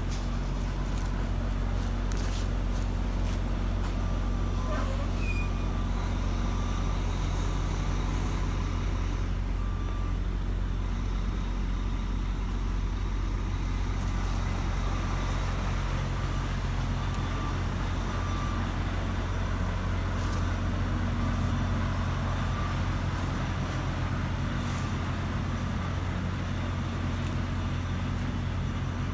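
A large truck's engine idling steadily throughout. Through the middle stretch a backup beeper sounds in a row of short, evenly spaced beeps.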